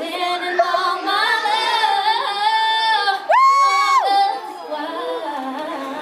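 A woman singing unaccompanied, holding long notes, then jumping to a higher, louder held note about three seconds in.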